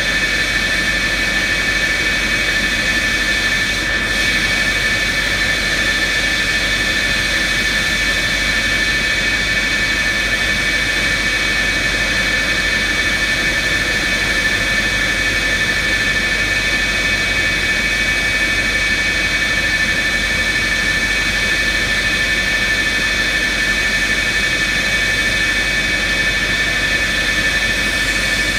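Jet turbines running steadily during an F-4E Phantom's engine power-up, with a ground air-start cart hooked up: a loud, even whine with several high steady tones over a constant rush.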